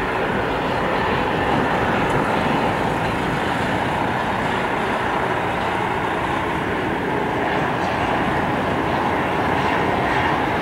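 Airbus A320's twin IAE V2500 turbofan engines as the jet climbs away after takeoff: a steady, even jet noise.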